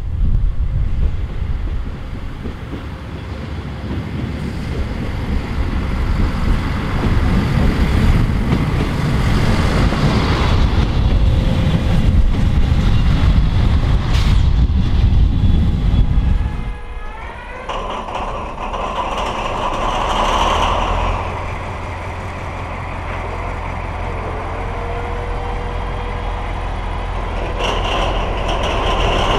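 X 73500 diesel railcars running out of a station, a heavy low rumble mixed with wind on the microphone. After a sudden change about 17 seconds in, an SNCF BB 67600-series diesel locomotive idles with a steady engine hum, growing a little louder near the end as it prepares to pull away.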